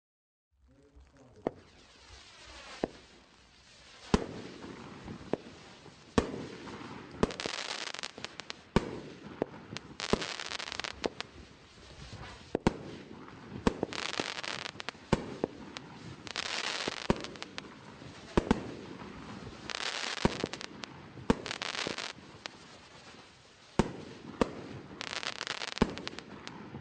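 Magnum Radiant Spirals, a Category 2 consumer firework, firing. Sharp bangs come every second or so, with stretches of crackling and hissing between them, starting about half a second in.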